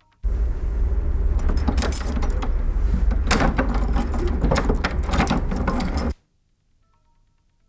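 Keys rattling and a key being turned in a door lock: a dense run of metallic clicks and scrapes over a low rumble, starting and stopping abruptly.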